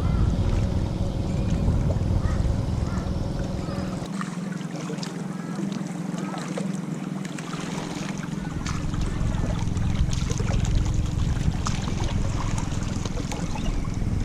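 Wind buffeting the microphone over the wash of surf on a beach, the low wind rumble easing for a few seconds in the middle, with scattered small clicks.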